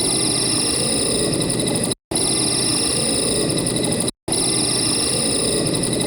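Cricket trilling, a steady high-pitched, rapidly pulsing trill over a low background rumble, heard as a roughly two-second stretch three times with two brief breaks.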